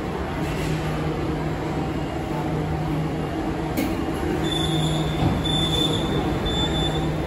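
Beijing Subway Line 6 train pulling into the station and slowing to a stop behind the platform screen doors, with a steady low rumble and hum. A single sharp click comes a little past halfway. A thin high squeal follows and lasts until the train stops.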